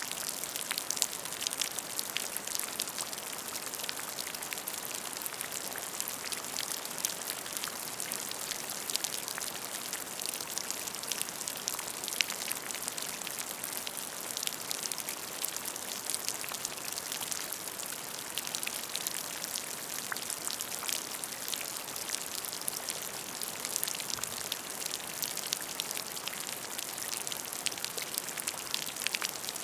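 Steady rain falling, an even hiss dotted with many close individual drop ticks, without thunder.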